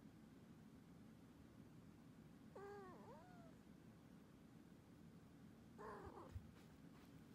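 A kitten meows faintly twice, a few seconds apart; each call bends in pitch. A soft low thump follows right after the second meow.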